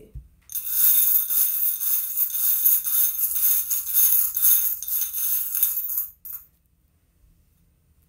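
Small charms rattling and clinking against a ceramic bowl as a hand stirs and shakes them. The clatter starts about half a second in, runs for about five and a half seconds and stops, followed by a couple of single clicks.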